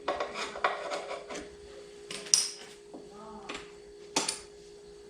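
Small metal clicks and clinks from the motorcycle's rear brake caliper hardware, its pin and pads, being worked loose by hand. There are about half a dozen sharp taps, the loudest about two and a half seconds in, over a faint steady hum.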